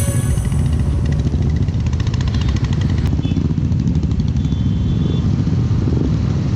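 Royal Enfield motorcycle engine running steadily with an even, low thudding beat.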